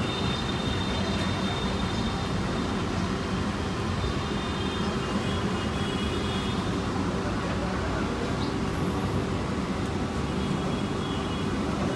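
Steady background noise of busy street traffic.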